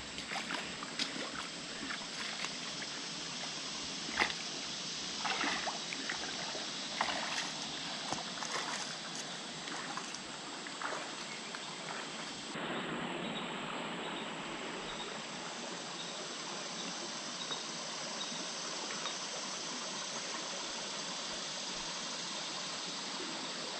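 Shallow muddy creek water flowing with a steady trickling hiss. Through about the first half come irregular squelches and splashes of boots wading through mud and water.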